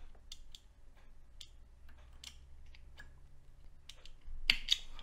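Small scissors snipping pheasant-tail fibres at a fly-tying vise: a few faint clicks, then two sharp snips close together near the end.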